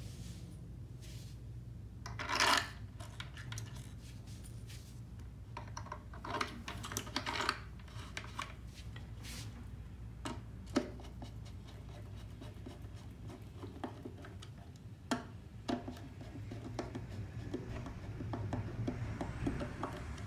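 Hard plastic rubbing, scraping and clicking as hands press a new valve and its blue push-fit tubing into place in a reverse-osmosis filter's plastic housing. The sounds are irregular, with the loudest scrape about two and a half seconds in and sharp clicks about halfway through and again a few seconds later.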